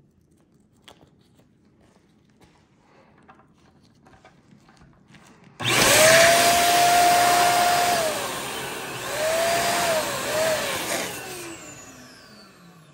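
Electric balloon air pump switched on about halfway through, blowing loudly for about six seconds to inflate a clear Bobo balloon, a whistling tone wavering over the rush of air; it is then switched off and winds down with a falling hum. Before it, soft rustling and clicks as the plastic balloon is fitted onto the pump's nozzle.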